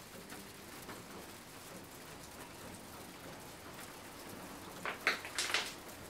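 Steady rain falling, an even patter throughout. About five seconds in there are a few brief, louder rustles.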